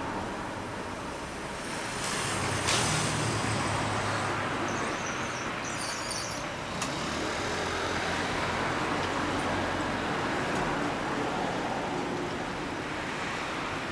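Mazda RX-8's two-rotor Renesis rotary engine idling steadily, with a brief sharp click about three seconds in.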